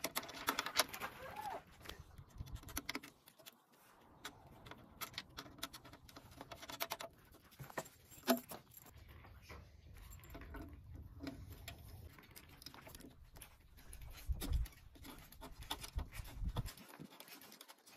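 Scattered light clicks and rustling as plug connectors are pushed and twisted into the front-panel sockets of a plasma cutter and the rubber-jacketed leads are handled.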